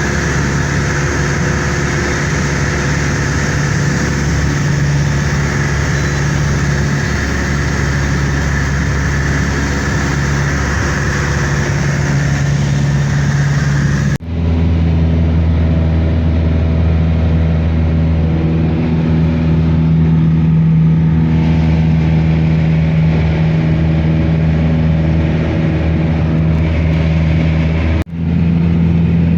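Steady engine drone with a constant low hum and a hiss, heard from inside a vehicle. It cuts off abruptly twice, about halfway through and near the end, resuming each time with a stronger low hum.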